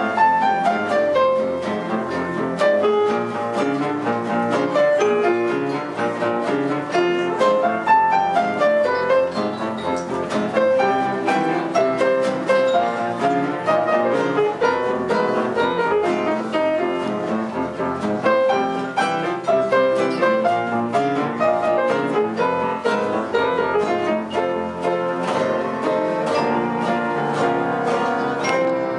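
A small live ensemble of nylon-string classical guitars with cello and double bass playing a lively tune, the guitars plucking quick runs of short notes over the bowed strings.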